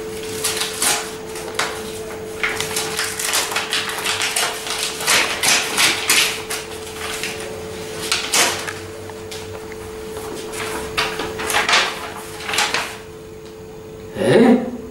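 Paper rustling and crinkling in quick rasps as mail is handled and a letter is opened out, over a steady hum. The rustling stops about two seconds before the end, followed by one short voice-like sound.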